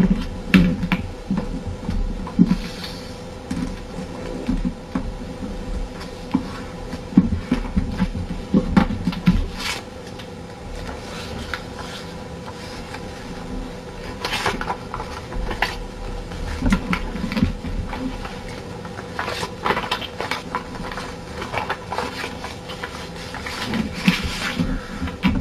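Sheet of paper being folded and creased by hand on a tabletop: intermittent rustles, crackles and scrapes as the fold is lined up and pressed flat, with soft taps. A steady faint hum sits underneath.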